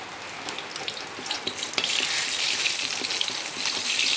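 Bay leaves sizzling and crackling in hot oil in an iron wok, getting louder about two seconds in as a metal spatula stirs them.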